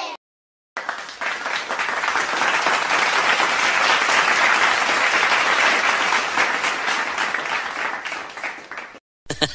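Crowd applause, many hands clapping, laid in as a sound effect. It cuts in abruptly after a moment of dead silence, swells to its loudest around the middle, fades and cuts off abruptly near the end.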